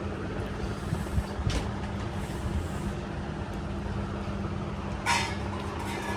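A steady low mechanical hum with a faint even tone underneath. A few small clicks of a spoon against a plate come about a second in, with a short scrape near the end.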